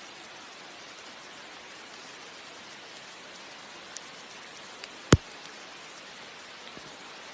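A steady hiss with a few faint ticks, and one sharp, loud click about five seconds in.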